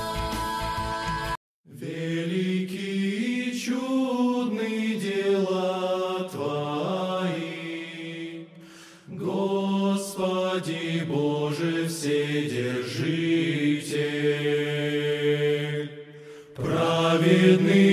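Choral singing of a slow chant, several voices holding long notes in harmony. It breaks off to silence for a moment about a second and a half in, then starts again, with brief lulls near the middle and near the end.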